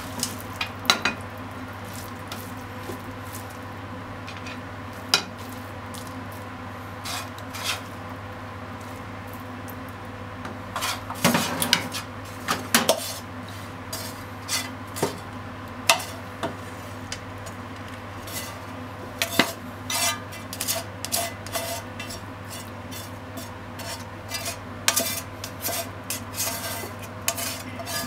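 Tongs clinking, tapping and scraping against a frying pan and a ceramic plate while a stir-fry of kakinoki mushrooms and onions is served out, in scattered clicks that come thickest a little before halfway and through the last third. A steady low hum runs underneath.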